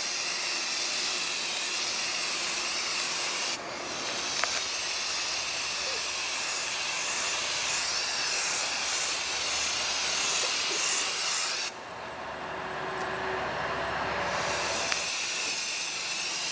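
Aerosol spray can of Rust-Oleum NeverWet base coat spraying in long, steady bursts as the water-repellent base coat goes on. It breaks off briefly about three and a half seconds in, then stops for a few seconds about twelve seconds in before spraying again.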